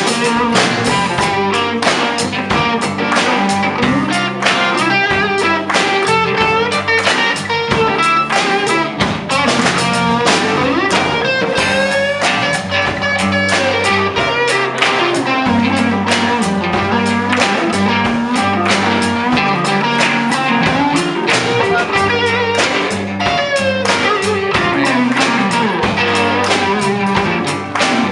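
Live band music in a bluesy style: a guitar playing over bass and drum kit, with no singing.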